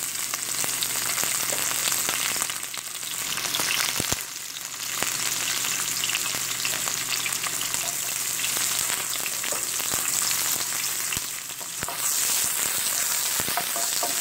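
Sliced onions and garlic sizzling in hot oil in a nonstick frying pan as they are stirred with a wooden spoon, with a few sharp knocks against the pan partway through and near the end.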